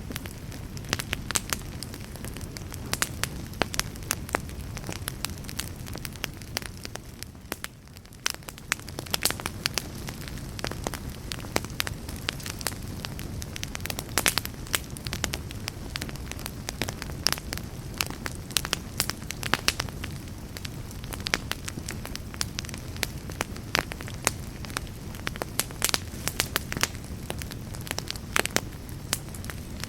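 Campfire burning, with frequent sharp crackles and pops over a low steady rumble; it eases briefly about seven seconds in.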